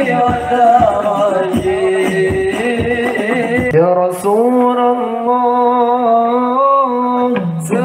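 A single voice sings an ornamented, Arabic-style devotional melody in the manner of sholawat for the Prophet, with hand drums beating about three times a second. About four seconds in, the drums stop and the voice holds one long, steady note.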